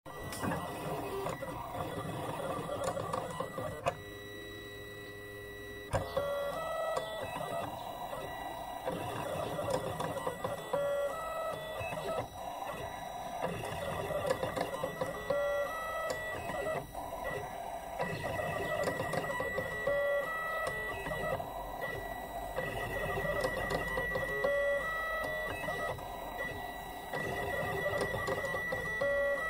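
Cuyi mini cutting plotter running a contour cut around printed stickers: its motors whir as the blade carriage and rollers move, with short stepped tones that jump in pitch at each change of direction. A thin high whine runs under it, stronger in the second half, and about four seconds in the whirring gives way to a steadier hum for two seconds.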